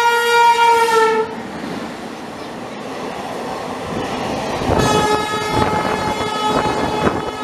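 WAP7 electric locomotive's horn blaring as it passes at speed, the pitch dropping as it cuts off about a second in. Then ICF passenger coaches rush past with wheels clattering over rail joints, and a long horn sounds again about five seconds in.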